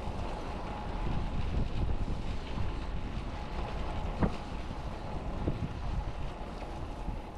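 Wind buffeting a bicycle-mounted action camera's microphone while riding, over tyre and road rumble. A few short knocks come through, a sharp one about four seconds in.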